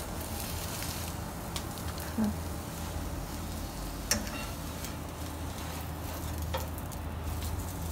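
Beaten egg sizzling in a frying pan, with a few sharp clicks of a spatula against the pan, the loudest about four seconds in. A steady low hum runs underneath.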